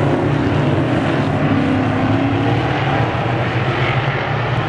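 Engines of a pack of dirt-track race cars circling the oval, blending into a steady drone with no sharp revving.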